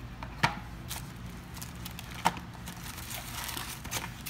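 Cosmetics packaging rustling and crinkling as hands rummage among products in a gift box, with two sharp knocks, about half a second and two seconds in.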